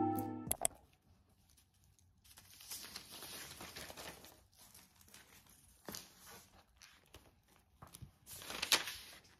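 Paper pages of a textbook and a spiral notebook rustling as they are leafed through, in several bursts with the loudest near the end, and a sharp tap about six seconds in.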